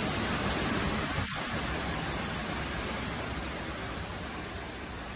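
Steady, even rush of heavy hurricane rain and wind.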